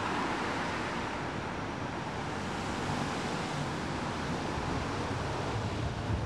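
Ganz three-section articulated tram rolling past, a steady rumble and hiss of its wheels running on the rails.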